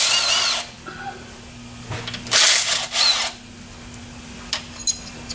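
A handheld power tool runs in two short bursts, each under a second with a wavering high whine, then a few sharp metallic clicks near the end.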